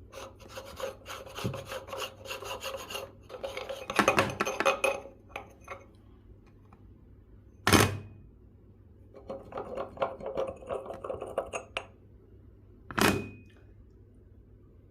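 Meat grinder crunching biscuits: irregular scraping and grinding in two stretches, with two sharp knocks about five seconds apart.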